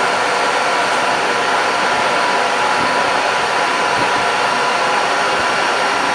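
Stepmores 1325HL ATC CNC router running steadily as it engraves a door: a constant whirring hiss with a high spindle whine holding several steady tones.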